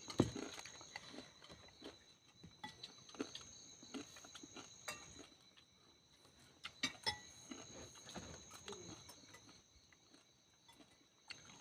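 Faint eating sounds: scattered small clicks and clinks of a spoon and dish with chewing, over a faint steady high-pitched whine.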